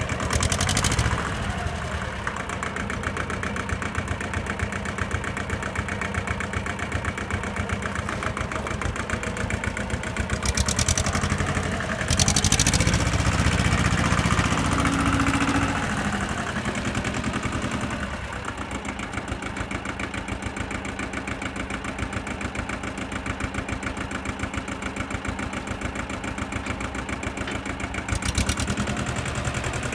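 Shibaura S1000 compact tractor engine running as the tractor is driven, louder for a few seconds around the middle. A few brief noisy bursts come on top, about a second in, twice around the middle, and near the end.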